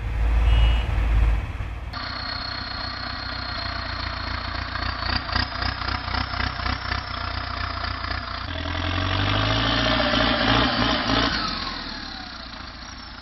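Heavy vehicle engine running. A loud low rumble gives way abruptly about two seconds in to a clattering engine, which revs up a little past the middle and then fades out near the end.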